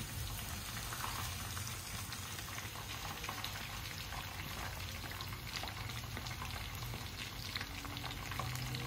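Coated chicken pieces deep-frying in hot oil: a steady sizzle with dense crackling, while the golden-brown pieces are lifted out with a wire skimmer.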